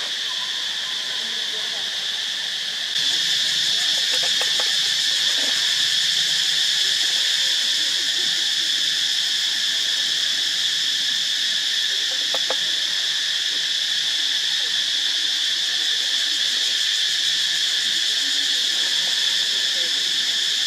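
Steady, unbroken drone of a chorus of insects, high-pitched and dense, which jumps to a louder level about three seconds in.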